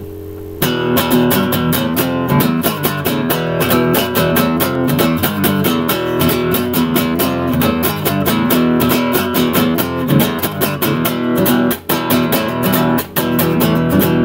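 Acoustic guitar strummed in a steady, quick rhythm, starting with a softer held chord for about half a second.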